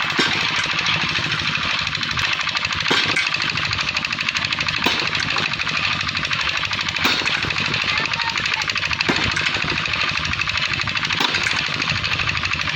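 Rapid mechanical hammering from a pneumatic power tool, a continuous fast rattle with a sharper knock every couple of seconds, typical of repair work on a steel railway bridge.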